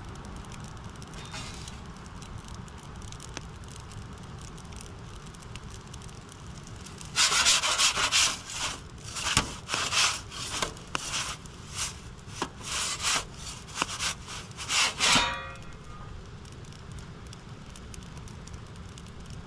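Perforated metal pizza peel scraping against the floor of a charcoal pizza oven as the pizza is slid onto it and turned: a run of loud, rasping scrapes starting about seven seconds in and stopping about eight seconds later.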